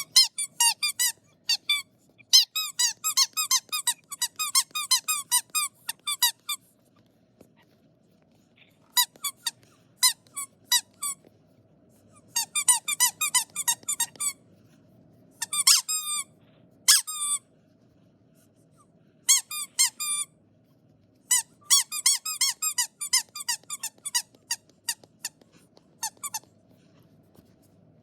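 Rapid, high-pitched squeaks in bursts separated by short pauses, each squeak brief and dipping slightly in pitch.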